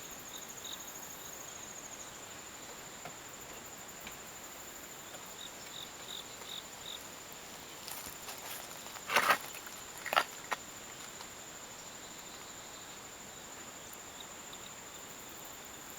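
Steady high-pitched trill of insects, with a few faint short chirps. Two brief sharp rustling knocks come about nine and ten seconds in.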